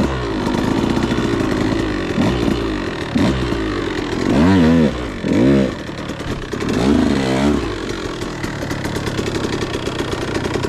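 2013 KTM 150XC's single-cylinder two-stroke engine revving up and down in repeated blips as the dirt bike is ridden. The pitch rises and falls several times, with the strongest rev-ups around four and a half, five and a half and seven seconds in.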